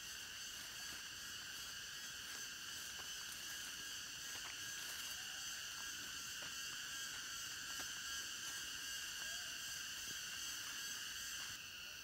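Steady insect chorus in forest undergrowth, several high-pitched droning tones layered together, with faint light footsteps on a grassy path.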